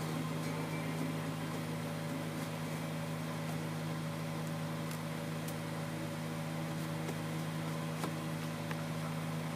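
Steady low machine hum, with a few faint ticks near the middle and towards the end.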